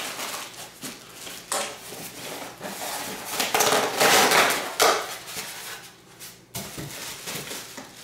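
Styrofoam packing blocks being pulled off a plastic-wrapped appliance and set down: irregular rustling, squeaking and scraping, loudest a little past the middle, with a sharp knock late on.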